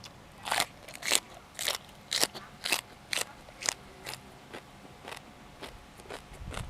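Close-up crunching of crisp raw vegetables being chewed, about two crunches a second, loud at first and fainter over the last few seconds.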